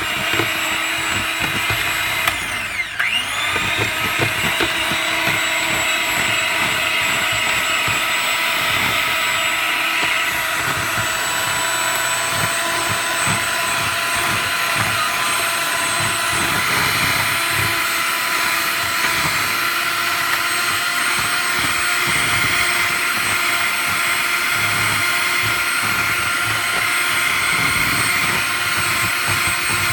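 Loud, steady whirring of a running motor, with several steady tones over a broad hiss and a brief dip about three seconds in.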